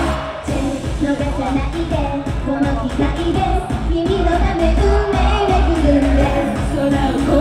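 Live idol pop song played loud through a concert sound system, with singing over a steady heavy bass beat. The music drops briefly right at the start, then carries on.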